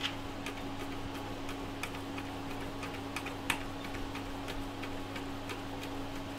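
A small screw being driven into a 3D-printed plastic filament buffer, going in tight, with faint irregular clicks and ticks and one louder click about three and a half seconds in. A steady low hum runs underneath.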